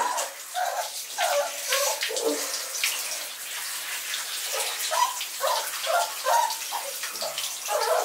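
Water spraying from a handheld shower head onto a puppy and the shower floor, a steady hiss. A string of short, high whine-like sounds comes over it.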